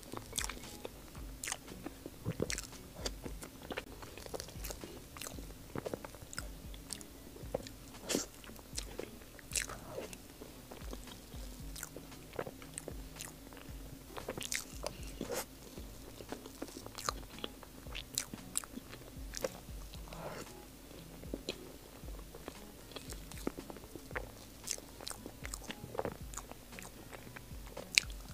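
Close-miked chewing of soft mille crepe cake: irregular mouth clicks and lip smacks, one or two a second.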